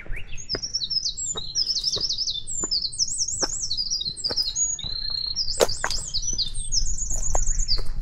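A small songbird singing one long, rapid song of high trills and warbles, with footsteps on a dirt trail beneath it.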